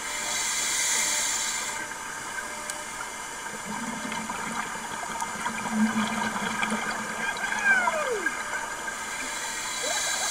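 Scuba diver breathing through a regulator underwater: a hiss of inhalation for the first second or two, then a longer bubbling exhalation, with the next inhalation starting at the end. A couple of short falling squeals about three-quarters through.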